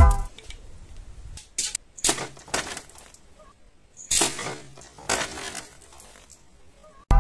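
A handful of short sharp cracks and clatters, the loudest about four seconds in: a bamboo arrow shot from a homemade wooden gun slingshot striking and piercing a plastic water bottle and knocking it over onto a wooden board.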